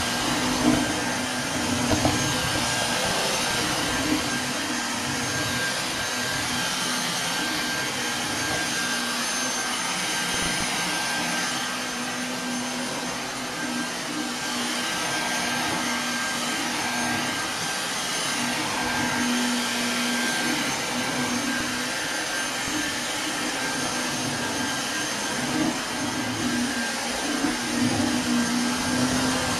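Vacuum cleaner running steadily over carpet, a continuous motor whine and rush of air whose low hum swells and fades a little as it is moved about.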